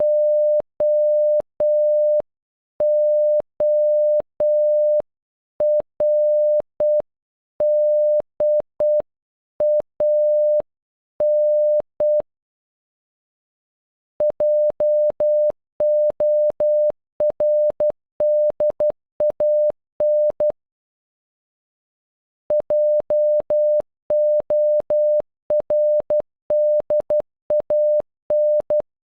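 Morse code beeps: a single steady tone of about 600 Hz keyed on and off in dots and dashes, spelling JORDAN (.--- --- .-. -.. .- -.). The first group, ending about 12 seconds in, is played slowly; after a pause the word is sent twice more at a faster speed.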